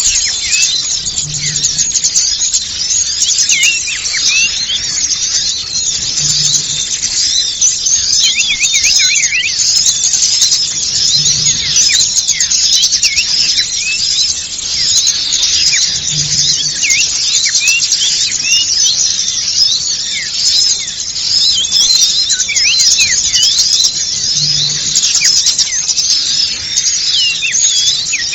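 Bird-lure recording: a dense, busy chorus of many small songbirds chattering at once, with rapid high chirps, twitters and squeaky calls overlapping without a break.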